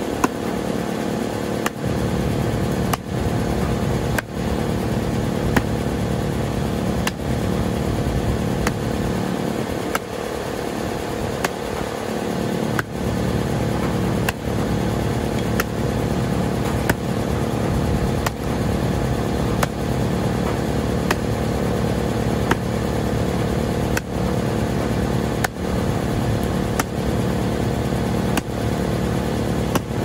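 Fiskars X15 axe chopping into the trunk of a leaning Norway spruce, a sharp chop about every second and a half, over the steady drone of an engine running.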